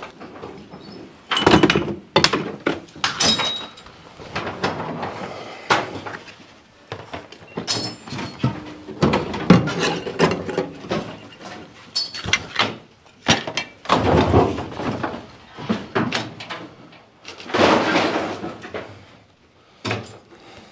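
Irregular knocks, thumps and clanks of hard objects being handled, spaced unevenly, with a few short high rings after some of the strikes.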